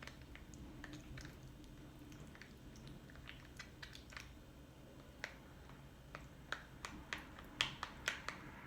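Plastic spatula stirring a thick, greasy mixture of shea butter, oils and aloe vera gel: quiet squishy clicks and taps against the container, coming more often and sharper in the last few seconds.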